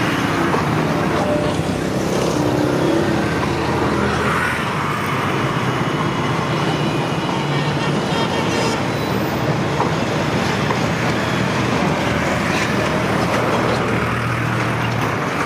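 Steady road-traffic noise, a continuous rumble with faint low hums and no clear rhythm.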